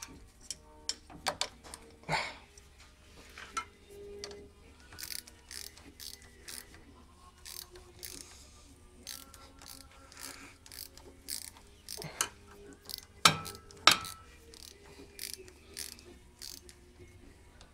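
Irregular small metallic clicks and taps from a VeloSolex 3800 carburettor and its linkage being handled and fitted by hand, with two louder clicks close together about three-quarters of the way through.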